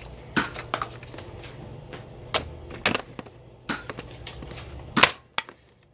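Irregular sharp clicks and knocks of foam-dart blasters in a Nerf battle, blasters going off and darts striking, about ten in all with the loudest about five seconds in.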